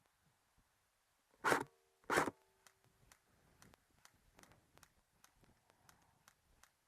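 Two sharp airsoft gun shots about two-thirds of a second apart, followed by faint clicking and rustling of gear.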